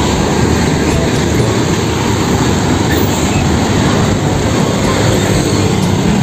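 Steady, loud truck engine rumble with no clear pitch, the vehicle sound that goes with a toy tow truck.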